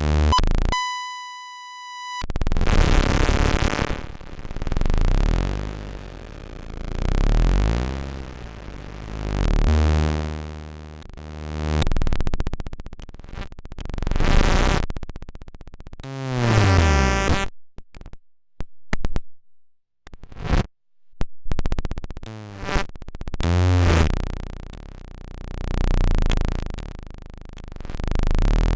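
Eurorack modular synthesizer chaos-and-noise patch from Zlob chaos modules, its output swelling and fading about every two and a half seconds under an envelope and VCA. The sound shifts between harsh noise and buzzing pitched tones, with a clear steady tone near the start, gliding pitches past the middle, then a choppy stuttering stretch before the swells return.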